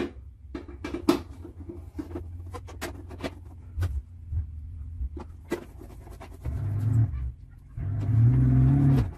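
Hand screwdriver driving small screws into the top seal strip on a window air conditioner: scattered light clicks and taps of the tool and screws over a low steady hum. Near the end a louder low hum lasts about a second.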